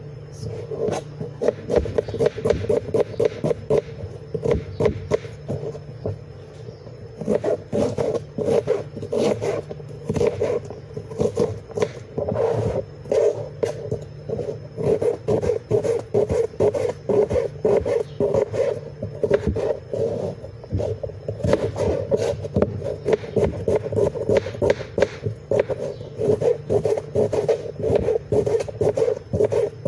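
Kitchen knife chopping red onion on a cutting board: rapid, irregular knocks of the blade on the board, over a steady hum.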